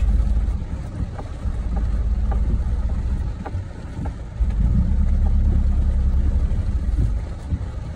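Skoda Octavia II engine heard from inside the cabin, revving in surges as the car labours on a wet, steep dirt slope, with scattered short knocks from the car working over the rough ground. The engine eases off briefly about a second in and again near the middle, then comes back on harder.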